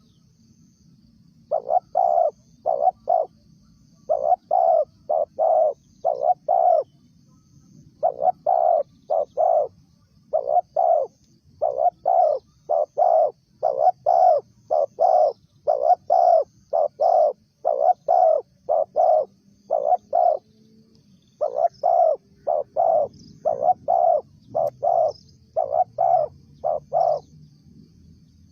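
Spotted dove cooing in repeated phrases of about three to five notes, with short pauses between phrases. Faint high chirps of other birds sound behind.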